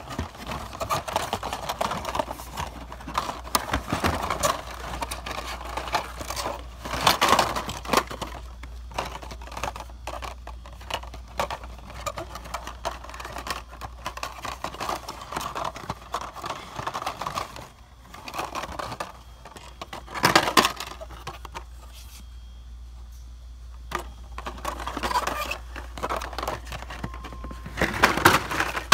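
Hot Wheels blister-pack cards being flipped and pushed along metal store peg hooks: steady rustling of card and plastic with clicks and clacks, and a few louder clatters about 7 and 20 seconds in and near the end.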